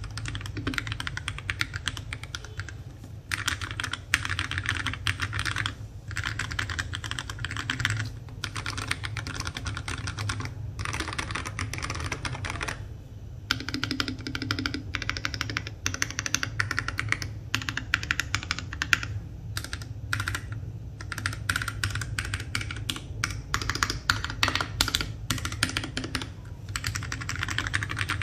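Fast, continuous typing on an FL680 mechanical keyboard with Tecsee Purple Panda tactile switches and NJ80 keycaps, a dense run of keystrokes broken by several short pauses. A low, steady hum sits underneath.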